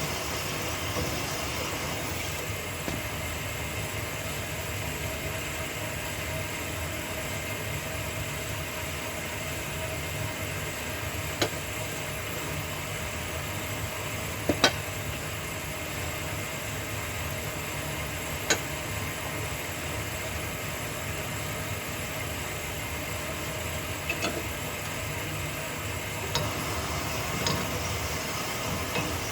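Honing machine running steadily with a constant motor drone while the small pin end of a 302 Ford connecting rod is lightly honed to remove any folded-over metal. A few sharp single clicks come through it, the loudest about halfway.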